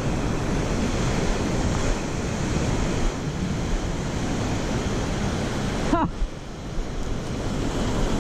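Ocean surf breaking and washing up the sand, with wind buffeting the microphone. A short pitched glide comes through about six seconds in.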